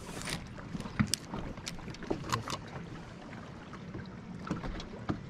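Low water and wind noise around a bass boat, with scattered small clicks and knocks from a fishing rod and gear being handled; the sharpest come between about one and two and a half seconds in.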